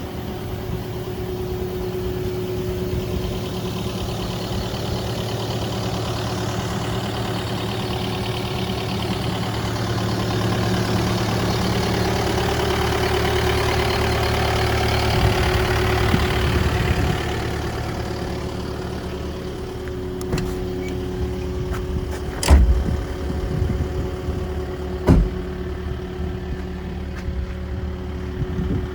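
Kubota KX080 midi excavator's diesel engine running steadily, getting louder and hissier for about ten seconds midway before settling back. Two sharp knocks come a few seconds apart in the last third.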